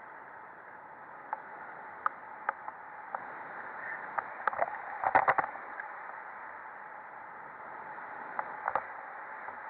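Wind rushing over an action camera's microphone in paraglider flight, a steady hiss. Scattered sharp clicks run through it, with a short cluster of louder knocks about halfway through.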